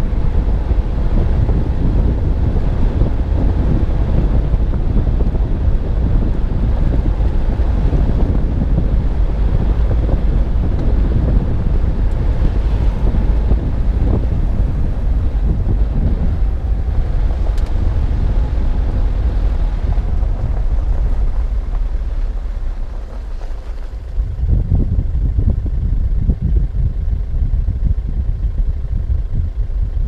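Wind buffeting the microphone of a car-mounted GoPro while the car is driving, mixed with low road and tyre rumble. The rumble eases briefly about three-quarters of the way through, then comes back.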